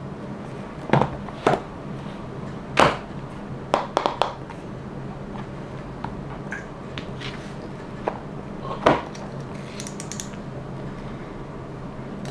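Sharp, scattered clicks and knocks of hard plastic items and packaging being handled and set down on a table, about a dozen in all, the loudest near the start, around four seconds in and near the end, over a steady low hum.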